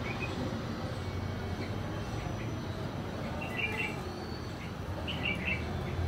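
Red-vented bulbul chirping: two quick bursts of short chirps, the first just past halfway and the second about a second and a half later, over a steady low hum.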